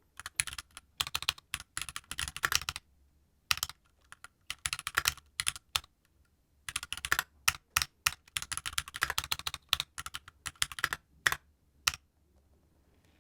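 Keychron Q2 mechanical keyboard being typed on, in quick runs of keystrokes broken by short pauses, stopping about a second before the end.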